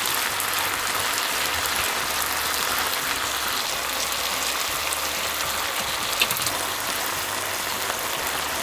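Chicken thigh and cabbage in gochujang sauce sizzling steadily in a frying pan, with a faint click about six seconds in.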